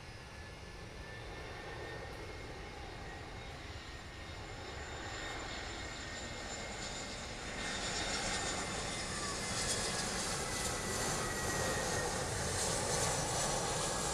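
Jet airliner on landing approach passing low overhead. Its engine noise grows steadily louder, with a high whine on top, and is loudest over the last few seconds.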